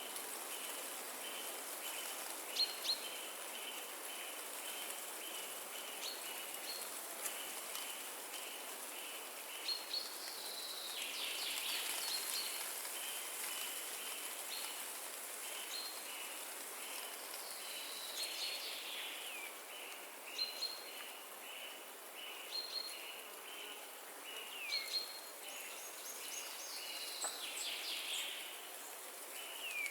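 Forest ambience: a steady hiss of wind in the trees, with birds calling throughout. One keeps up a steady run of short repeated notes on a single pitch, and others give occasional higher chirps and falling whistles.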